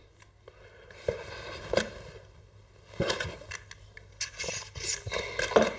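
Small threaded telescope spacer rings being handled and turned in the hands: scraping with a few light clicks, busiest from about three seconds in.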